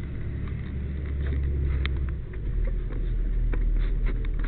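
Fire truck's engine running with a low, steady drone and scattered rattles and clicks; the engine note drops about two seconds in.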